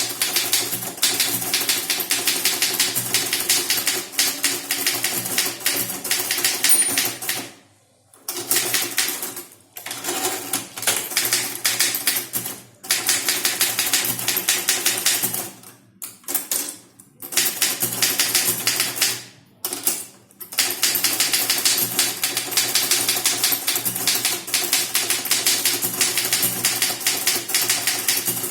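Typewriter being typed on fast, around 60 words a minute: a rapid, unbroken stream of key strikes, broken by a few brief pauses of under a second.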